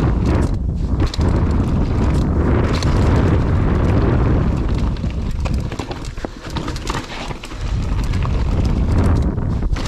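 Mountain bike riding down a dirt trail: heavy wind rumble on the mic with the clatter and knocks of tyres and frame over rough ground, easing briefly a little past the middle.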